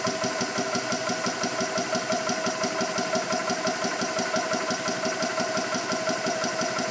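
Xisico CS3 4500 PSI portable high-pressure air compressor running steadily with a fast, even pumping rhythm, compressing air against a closed bleed valve to build pressure.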